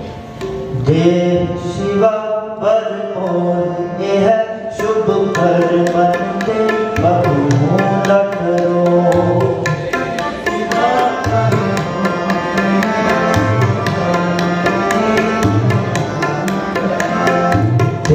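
Devotional music: a stepping melody over drum strokes, joined about six seconds in by a quick, steady clicking beat.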